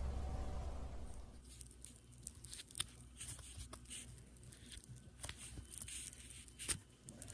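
A low steady hum with a soft squish of blue slime being squeezed in the hand, cut off about a second in. Then irregular crisp crackles and small pops as fingers press and dig into crumbly green granular play material in a plastic tub.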